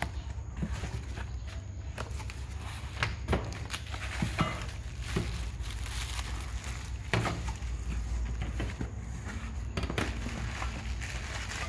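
Packaging being opened and handled: tape peeling off a cardboard box, plastic mailer wrapping crackling and rustling, with several sharp knocks as stainless steel bowls are set down on a steel tabletop.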